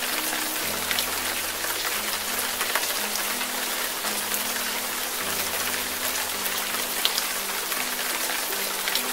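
Heavy rain falling onto water on a paved road: a dense, steady hiss with sharp drop splashes throughout. Under it runs soft background music of slow, held low notes.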